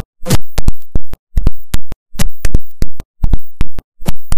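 Electronic dance music over a loudspeaker, chopped into short loud stabs about three a second with dead silence between them.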